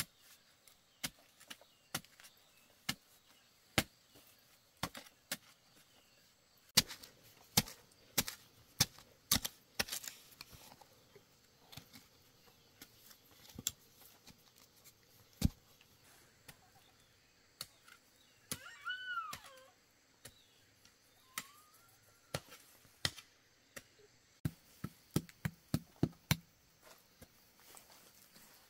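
A blade chopping with irregular sharp strokes, heavier and closer together about a third of the way in, with a quick run of strokes near the end. A brief high call that rises and falls cuts in about two-thirds of the way through.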